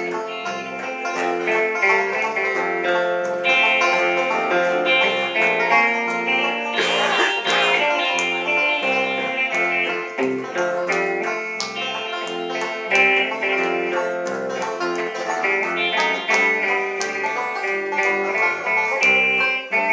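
Live southern gospel band playing an instrumental break on banjo, electric guitar and electric bass, with no singing.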